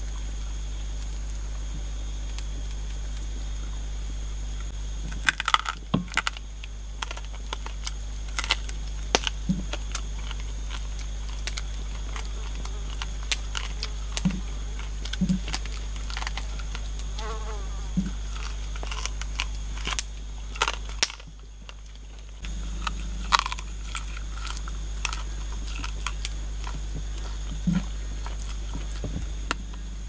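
Steady high drone of forest insects, with scattered sharp clicks and cracks of close handling starting about five seconds in. The sound drops briefly a little past two-thirds of the way through.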